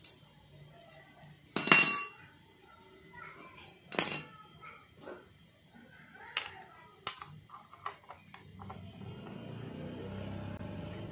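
Metal hand tools clinking during a valve clearance adjustment on a scooter engine: two sharp, ringing clinks about two and four seconds in, then a few lighter clicks. A low steady rumble rises over the last few seconds.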